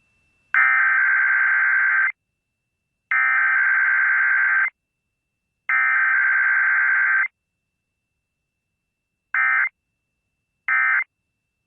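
Emergency Alert System SAME data tones. Three long, harsh, screechy bursts of about a second and a half each carry the test's header code. After a pause come two short bursts about a second and a half apart, the end-of-message code that closes the data.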